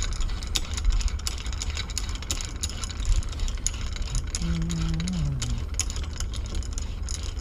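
Scattered metal clicks and knocks as a miter saw's product clamp is raised and worked out of its mount, over a steady low rumble.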